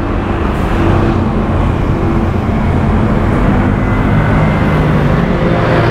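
Road traffic passing close by: the steady engine noise and tyre rush of cars and motorcycles going along the street.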